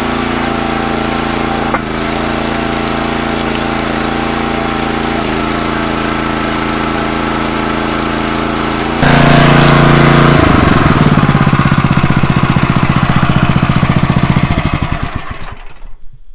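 Kohler Command Pro 14 HP single-cylinder engine running steadily, louder from about nine seconds in, then shut off and winding down in pitch until it stops near the end.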